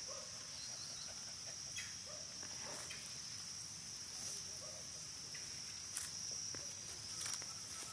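Insects chirring in a steady, high-pitched drone, with a few faint short rustles of grass being brushed by hand.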